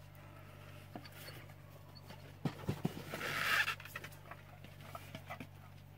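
Small items and packaging being handled: scattered light clicks and taps, with a brief rustle of plastic a little past the middle, over a low steady hum.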